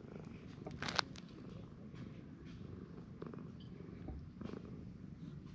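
A cat purring steadily while being stroked, a low rapid rumble. A brief scratchy noise stands out about a second in.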